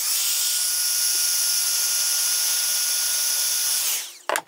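Electric heat gun blowing steadily with a faint whine, shrinking heat-shrink tubing over a chewed wire; after about four seconds it is switched off and winds down, followed by a short knock.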